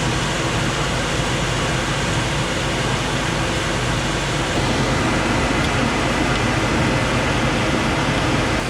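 Steady rushing noise with a low hum from the stove: a kitchen exhaust fan running while hot-water cornbread fries in oil.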